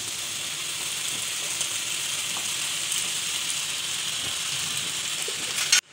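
Chicken and vegetables sizzling steadily in a hot frying pan as boiled macaroni is tipped in on top. A sharp click near the end, after which the sound cuts off.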